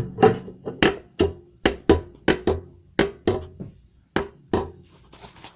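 A run of about a dozen sharp, hollow knocks, unevenly spaced at two to three a second, each ringing briefly; they stop about four and a half seconds in.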